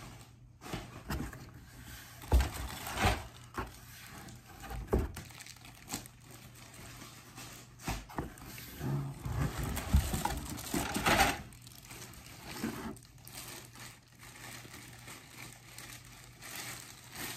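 Plastic wrapping crinkling and rustling as flat corrugated-plastic goose silhouette decoys are handled and unwrapped, with a few sharp knocks in between.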